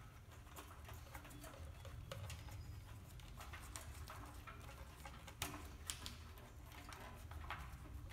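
Small clicks and scrapes of hands handling an electrical wire and working it through a motorcycle's rear fender and tail-light mount, over a low steady hum. Two sharper clicks come a little past the middle.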